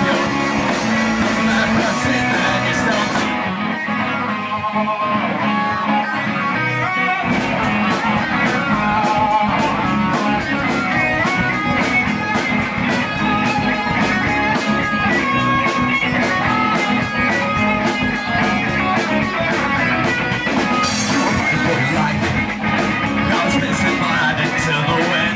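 Live punk rock band playing: electric guitars over drums. A few seconds in, the drums and bass drop out for about four seconds, leaving guitar alone, then the full band comes crashing back in.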